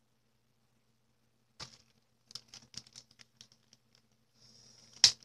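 Clear plastic bag crinkling and rustling as it is handled, in a string of short irregular crackles and clicks starting about a second and a half in, with one sharp click near the end.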